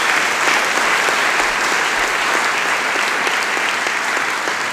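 Audience applause: many people clapping steadily in a hall.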